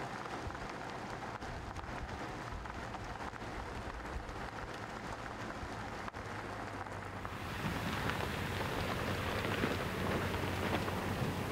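Steady road and tyre noise heard inside a moving vehicle. About seven seconds in it cuts to outside, where a pickup truck drives across a grassy clearing: its engine makes a steady low hum under a broad hiss.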